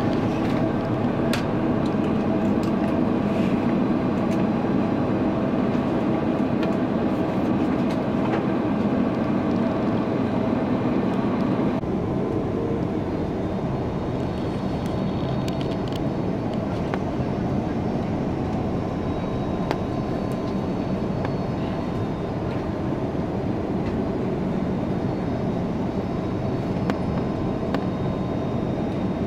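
Steady roar of an Airbus A330-300's jet engines and airflow heard inside the cabin on final approach. About twelve seconds in, the hissing upper part of the sound drops back a little.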